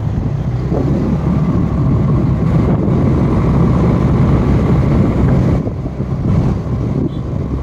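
Motor scooter riding along a road: steady engine and road noise from the ridden scooter, with wind buffeting the microphone.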